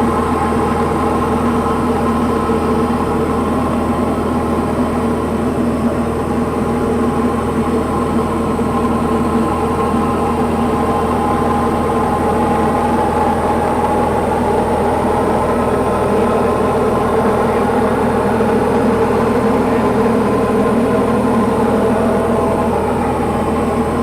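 Diamond DA40 light aircraft's piston engine and propeller running at a steady cruise power, heard inside the cockpit as a constant drone.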